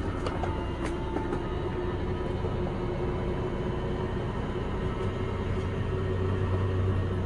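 Electric slide-out motor of a motorhome running steadily as the full-wall slide room moves, then cutting off just at the end. A steady low hum runs underneath.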